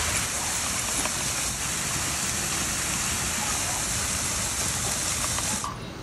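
Water pouring from a rock waterfall into a koi pond: a steady rushing splash that cuts off suddenly near the end.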